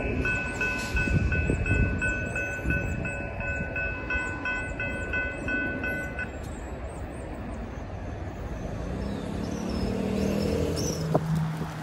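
Railroad crossing warning bell ringing in an even, rapid rhythm, stopping abruptly about six seconds in as the crossing gates rise after the train has cleared. Under it runs a low rumble from the departing train, and near the end a car engine pulls away across the tracks.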